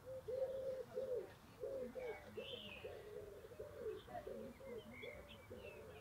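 A hen making soft, low, repeated clucking calls, about two a second, a contented murmur. Small songbirds chirp faintly and higher up.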